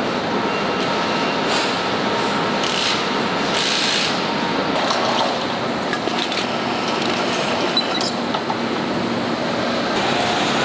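Steady factory-floor din on a tractor assembly line: machinery noise with faint steady tones, and a few short hisses in the first four seconds.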